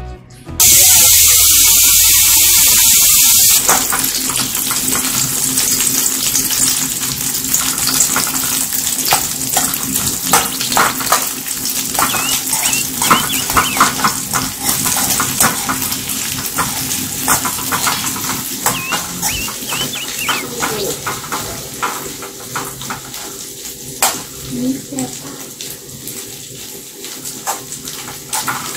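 Beaten eggs frying in hot oil in an aluminium wok: a loud burst of sizzling for the first few seconds, then steady sizzling with the clicking and scraping of a metal spoon stirring against the wok.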